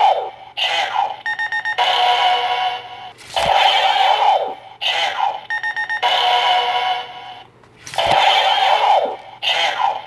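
Electronic sound effects from a Kamen Rider Blade DX toy gun being fired again and again, three times. Each shot is a sharp falling zap, then a quick run of beeps as its energy-point counter drops, then a short looping electronic tune.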